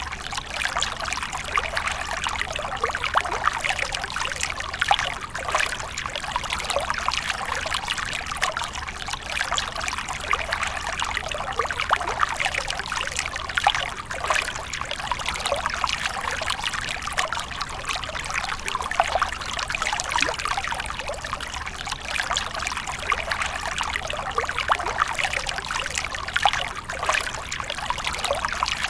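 Water splashing and trickling steadily, in a continuous stream of small splashes with no pauses.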